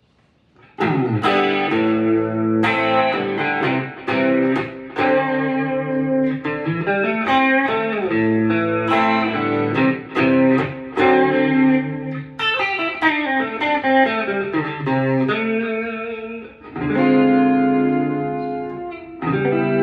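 Guitar music: a run of plucked notes and chords, starting about a second in.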